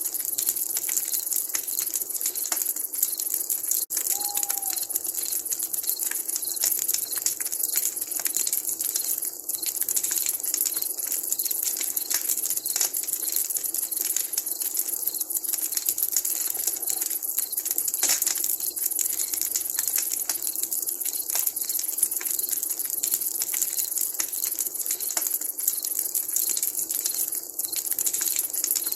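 Wood campfire crackling and popping steadily over a constant high hiss, with one short owl hoot about four seconds in.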